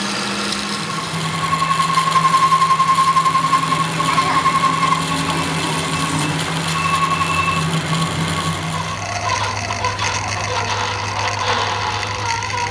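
Metal lathe turning a steel truck axle shaft, the cutting tool squealing in a pulsing high tone on and off from about a second in until about eight seconds. The lathe's steady hum drops to a lower pitch about nine seconds in.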